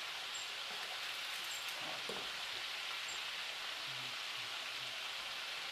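Meatballs frying in a pan on the stove: a steady sizzle.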